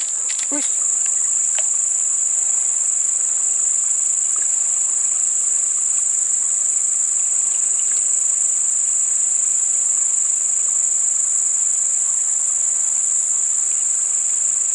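Steady chorus of insects in swamp vegetation: one continuous, shrill, high-pitched drone that never lets up, with a few faint clicks in the first second.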